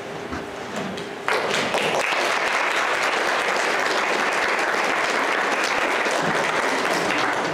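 Congregation applauding: the clapping starts suddenly about a second in, holds steady, and stops near the end.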